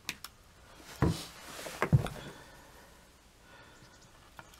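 Hobby-knife blade scraping and carving through hardened Sculptamold filler alongside a model rail, with a couple of light clicks, a scratchy hiss, and two knocks, the louder one about two seconds in.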